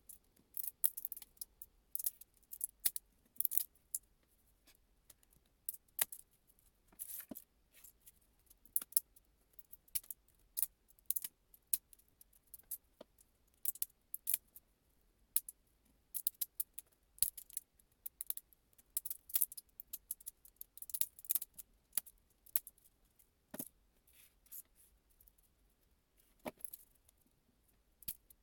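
Irregular light clicks and clinks of small hard parts being handled, a few a second with short pauses.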